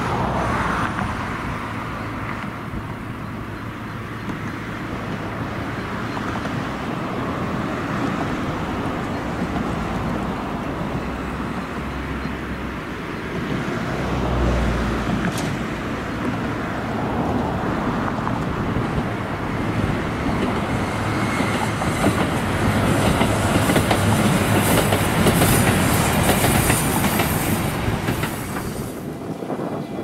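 JR Kyushu KiHa 220 diesel railcar running on single track, its diesel engine and wheel-on-rail clatter growing louder as it approaches. The sound is loudest, with a high hiss from the wheels, in the last several seconds before it drops away.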